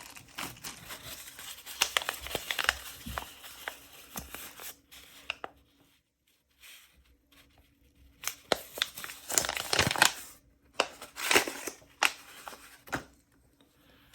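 Packaging being unwrapped by hand: irregular bursts of crinkling and tearing with small clicks, pausing for a couple of seconds in the middle before more crinkling.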